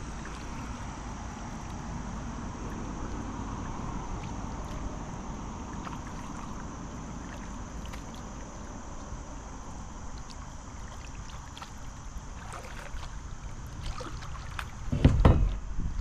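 Wind and light water noise around a kayak resting in a floating-dock launch slide, with scattered faint clicks. About a second before the end comes a loud, short burst of low rumbling.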